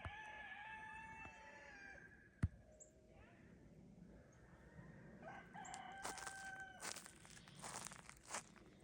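Rooster crowing twice: one long crow at the start and a second about five seconds in. A single sharp click comes about two and a half seconds in, and scattered crackling noises come near the end.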